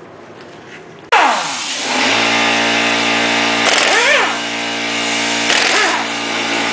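A pneumatic impact wrench on a car's lug bolts: a loud whirring starts abruptly about a second in and runs on, its pitch rising and falling in short spurts twice as the bolts are spun out.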